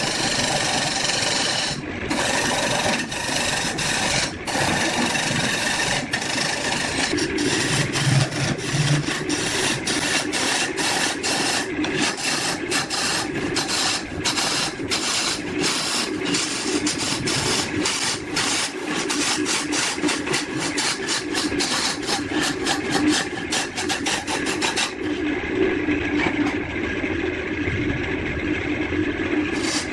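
A tool scraping and rasping on wood in continuous, repeated strokes. It sounds duller for the last few seconds.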